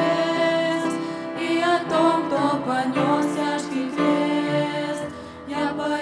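A teenage girls' vocal group singing a worship song together into handheld microphones, with instrumental accompaniment under the voices.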